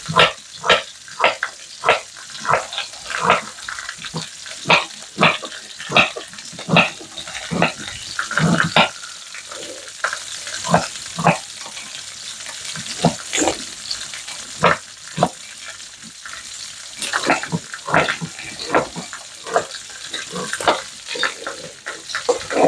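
Kitchen knife chopping peeled ginger on a wooden chopping board: a run of short sharp chops, roughly one or two a second, thinning out for a few seconds midway. Under it runs a steady sizzle of food frying in a pan.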